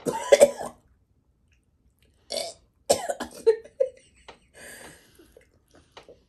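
A woman gagging and heaving on a mouthful of wet food, with a loud burst at the start and more heaves about two to four seconds in.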